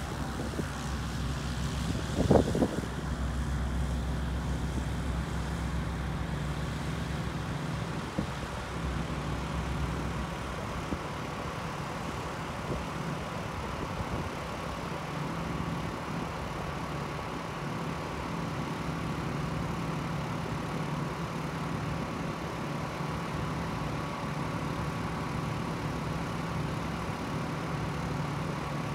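GA8 Airvan single-engine bush plane taxiing, its piston engine and propeller droning steadily at taxi power. A brief thump about two seconds in.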